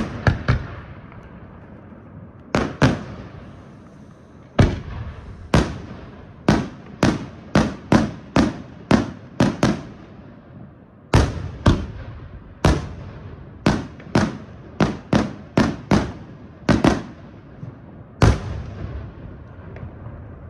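Fireworks shells bursting in a night display: a run of sharp single bangs, each followed by an echoing tail. They come irregularly, sometimes about two a second, with short pauses between the runs; the last bang falls a little before the end.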